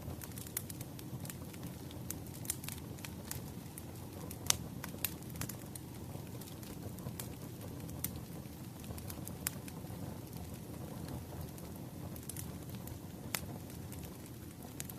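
Wood fire burning: a steady low rumble of flames with irregular sharp crackles and pops from the burning logs, one louder pop about four and a half seconds in.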